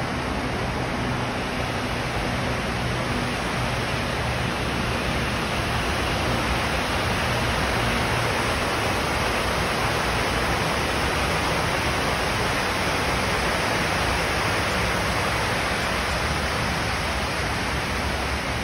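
Steady rushing of the 9/11 Memorial reflecting pool's waterfall, water pouring down the pool's walls into its central void.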